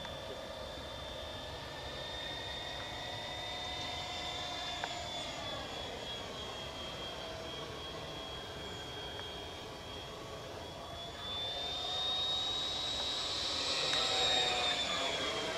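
69 mm electric ducted fan of a radio-controlled F-104 Starfighter model jet (Wemotec Minifan on a Typhoon 2W20 motor, 4S LiPo) whining in flight, its pitch sliding up and down as it passes overhead. About eleven seconds in, the whine rises in pitch and grows louder, peaking near the end.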